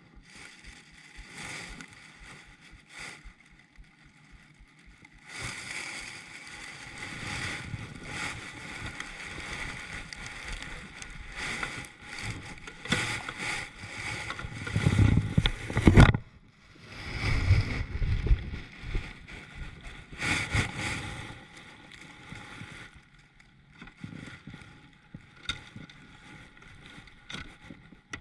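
Handling noise aboard a fishing kayak: irregular knocks, rustles and water sounds. There is a loud low rumble about halfway through, ending in a sharp knock.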